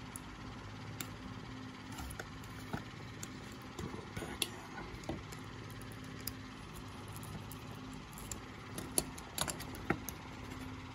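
Scattered small clicks and taps of wires and a plastic terminal block being handled as the wires are worked into the block, over a steady low hum.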